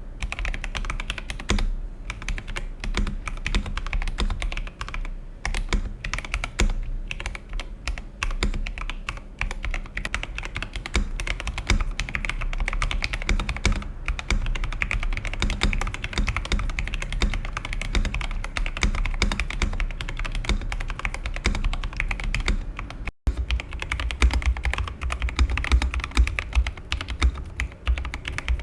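Typing on an Epomaker TH80 mechanical keyboard with Gateron Pro Brown switches: a rapid, continuous run of keystroke clacks. About 23 s in there is a momentary cut, after which the keystrokes carry more low end.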